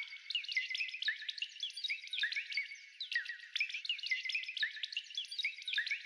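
Cartoon-style chirping sound effect: a dense, unbroken stream of many short high chirps, each sliding down in pitch and overlapping, like a crowd of small birds twittering.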